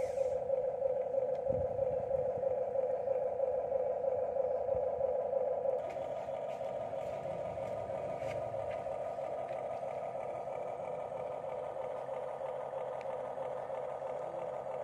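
Small electric gear motors of radio-controlled construction models whining steadily, louder for the first six seconds and then a little softer, with faint clatter and scraping underneath.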